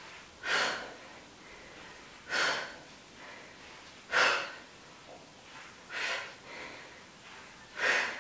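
A woman breathing out hard and audibly while doing glute bridges. There are five short breaths out at a steady pace, about one every two seconds, with fainter breaths in between them.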